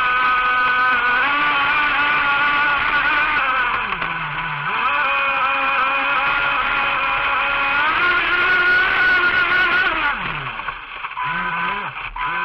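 Electric RC boat motor whining, its pitch wavering and sliding up and down with the throttle. It drops away briefly about four seconds in and again near the end.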